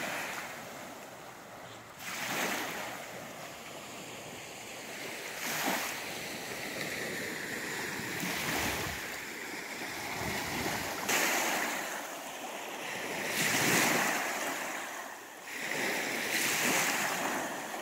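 Small lake waves breaking and washing up a sandy beach, the rush swelling and fading every few seconds.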